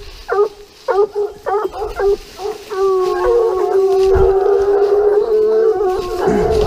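Gascon Saintongeois hounds giving tongue: a few short, falling yelps, then from about three seconds in long drawn-out baying howls, several voices overlapping. This is the pack's cry as they work the scent of a wild boar.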